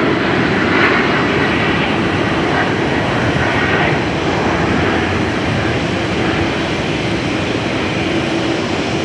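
Boeing 777's twin jet engines running as the airliner taxis, a steady rushing roar that eases slightly over the seconds.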